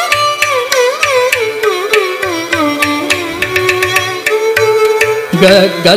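Carnatic classical music in raga Mohanam: a melodic line with wavering, sliding ornaments winds downward over hand-drum strokes. A fuller, lower phrase comes in near the end.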